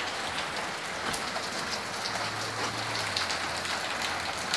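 Heavy rain falling steadily, an even hiss of rain on the ground and the surfaces around.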